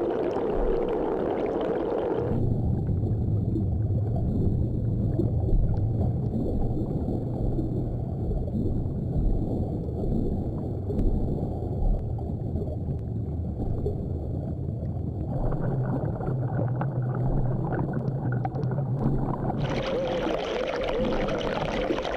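Muffled underwater rumble of water against a submerged camera housing, with a low steady hum and scattered small ticks. The sound changes abruptly about two seconds in, again near fifteen seconds and near twenty seconds, as the footage cuts between takes.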